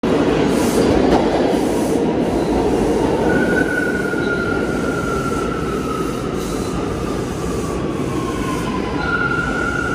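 A Bombardier R179 subway train pulls into an underground station and brakes, with a loud rumble and clatter of wheels on rail. A high whine starts a few seconds in and slowly falls in pitch as the train slows. Near the end a steady high tone sets in.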